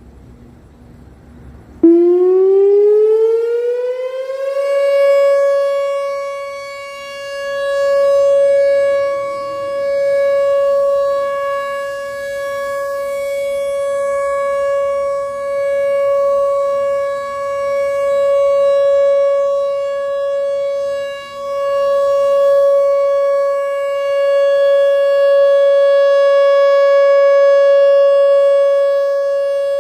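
Whelen Vortex electronic outdoor warning siren sounding its steady Alert signal for a siren test. It starts about two seconds in, climbs in pitch for a couple of seconds, then holds one steady tone. The tone swells and fades in loudness every few seconds as the rotating head sweeps around.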